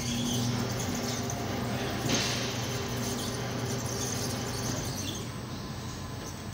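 Tire-changing machine in use on a car wheel: a steady mechanical hum with a short hiss of air about two seconds in.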